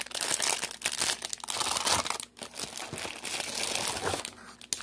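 Clear plastic packaging crinkling and rustling in quick irregular crackles as a gun cable lock wrapped in it is handled and pulled from its box, with a brief break a little past two seconds in.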